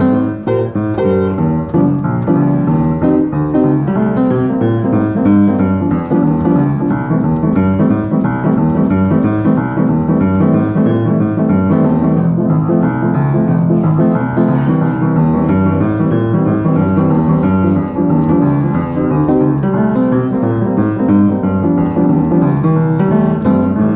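Piano music: a busy, unbroken stream of notes at an even loudness.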